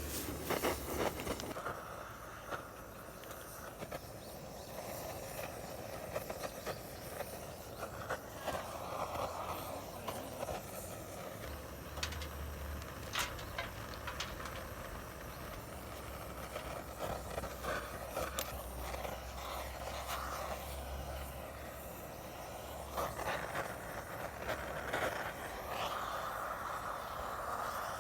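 Wind buffeting the microphone outdoors, a low rumble that rises and falls under a steady rushing noise, with scattered light clicks.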